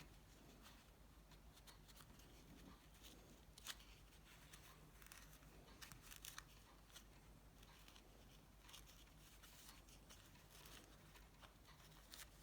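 Near silence with faint, scattered clicks and light scratching, one slightly louder tick a little under four seconds in: small handwork on a mobile phone's UI circuit board while it is being cleaned.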